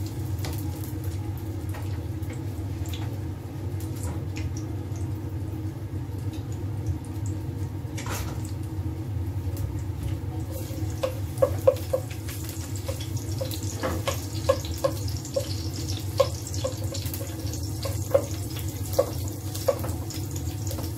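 Chopped garlic sizzling in hot cooking oil in a pot, over a steady low hum. Scattered short pops or taps come from about halfway through.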